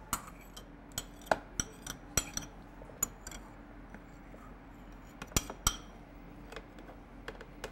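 A metal spoon clinking and tapping against a container and a blender jar while yogurt is spooned in: about a dozen sharp, irregular clinks, with a short lull a little past the middle.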